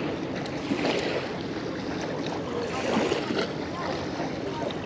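Small river waves lapping against the shore, with wind buffeting the microphone.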